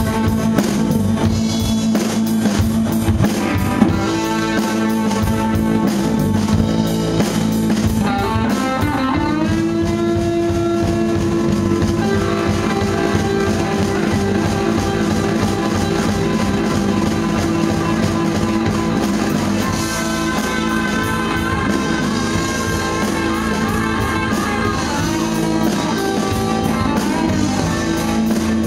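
Live rock band playing: two electric guitars, bass guitar and drum kit. A held note slides up in pitch about nine seconds in.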